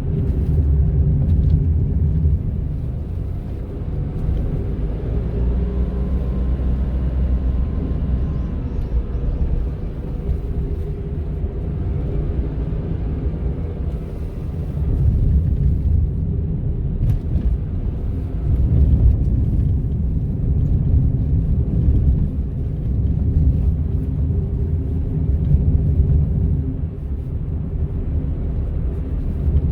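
Honda N-ONE three-cylinder kei car driving, heard from inside the cabin: steady low road and engine rumble with a humming, motor-like tone over it. The tone is the odd motor noise the owner, at 300,000 km, can't place and fears may be a fault.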